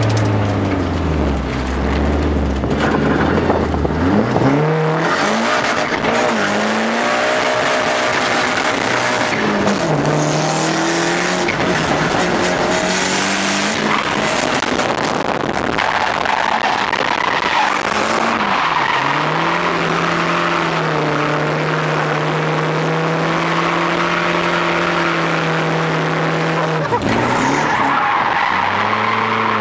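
Car engine heard from inside the cabin during a drift run, revving up and down as the car slides, with tyres squealing. Near the end the engine is held at steady high revs for several seconds, then drops off.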